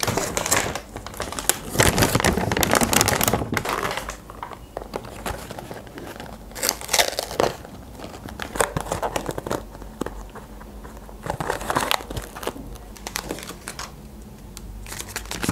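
Cardboard McDonald's nugget boxes and paper packaging handled and opened: crinkling and rustling in bursts, loudest in the first few seconds, with light knocks as boxes are set down on the table.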